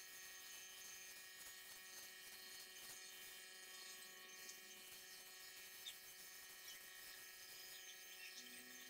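Near silence: a faint, steady electrical hum with a light hiss.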